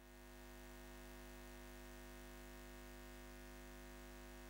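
Faint, steady electrical hum with many overtones, fading in and holding level, like the buzz of a neon sign.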